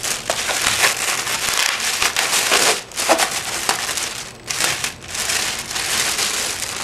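Plastic packaging crinkling and rustling as it is handled, a dense crackle with brief pauses about three and four and a half seconds in.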